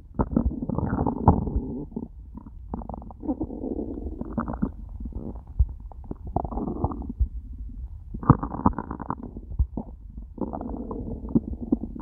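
An empty human stomach growling after a day without food: a string of irregular gurgling rumbles, some with a wavering pitch, broken by short sharp pops.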